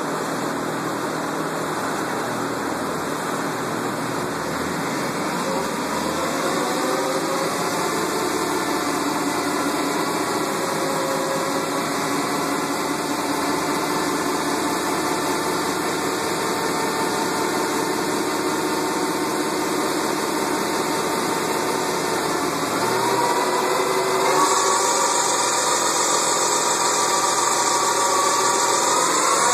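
1999 Pontiac Trans Am's LS1 V8 running on a chassis dyno, naturally aspirated for a baseline run before a supercharger is fitted. Its pitch climbs about a fifth of the way in, holds steady, then climbs again near the end as the engine winds up, with a rising hiss joining in.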